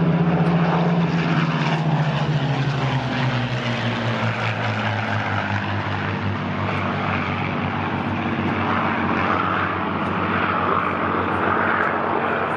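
P-51 Mustang and P-40 Kittyhawk flying past in formation, their liquid-cooled V-12 piston engines running. The engine note falls in pitch over the first few seconds as the pair passes, then holds steady.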